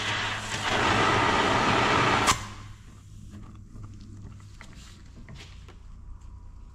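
Handheld torch flame hissing steadily while heating a seized, waterlogged part of a diesel governor to free it. It shuts off abruptly with a click about two seconds in, followed by faint small clicks and taps.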